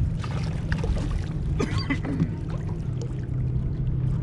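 A boat motor humming steadily, with faint water sounds and a few light knocks.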